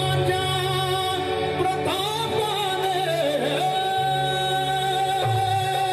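Live stage band music for a Marathi song with singing: a melodic line of sliding, wavering notes that settles into a long held note about halfway through, over a steady low bass.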